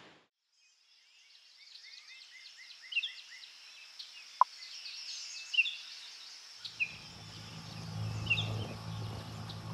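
Birds chirping and calling, many short repeated calls, fading in after a moment of silence. A steady low hum joins about seven seconds in.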